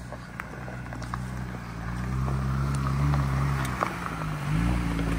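Jeep Wrangler's engine running as it crawls up a rocky dirt trail and pulls alongside, growing louder, its note rising twice. Tyres crunch over loose stones, with scattered sharp clicks.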